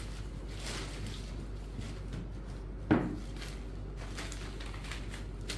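Cotton saree fabric rustling as it is unfolded and spread out by hand on a wooden tabletop, with a single sharp knock about three seconds in. A steady low hum runs underneath.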